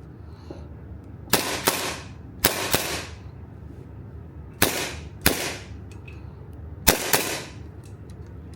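Airsoft gun firing eight shots, roughly in pairs, each crack trailing off in a short echo.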